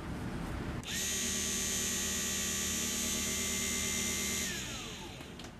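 Mini bead lathe's small electric motor switched on and spinning a chucked poplar handle with no tool cutting, a steady high whine. It then switches off and winds down, the whine falling in pitch until it stops.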